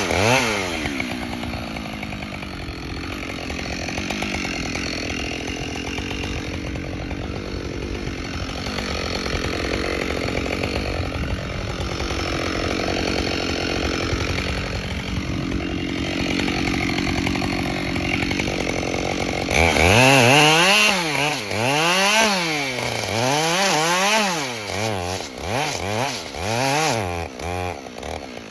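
Chainsaw running continuously, then from about two-thirds of the way in revved up and down over and over, its pitch rising and falling about once a second.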